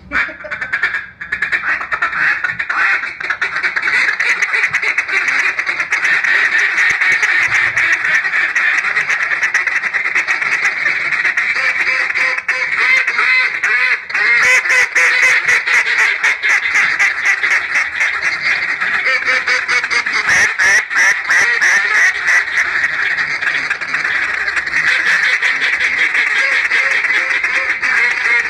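Banded Honey Badger duck call blown in a continuous run of mallard-style quacking. Fast runs of short, rapid notes come about halfway through and again a few seconds later.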